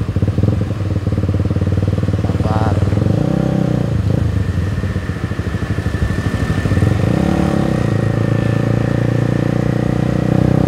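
Motorcycle engine running at low road speed in slow traffic, heard from the rider's seat. Its note rises and falls with the throttle, picking up about three seconds in and again about seven seconds in.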